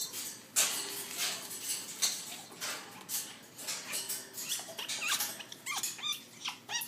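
African grey parrot making a long run of short, pitiful whining calls in quick succession, some with quick pitch glides in the second half. These are hormonal calls, which the owner puts down to the parrot coming of age at that time of the year.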